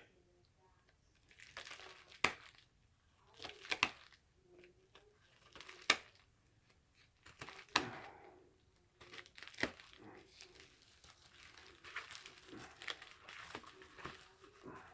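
Hands wrestling open a comic book's mail packaging: crinkling and tearing of the wrapping, with sharp crackling snaps every couple of seconds.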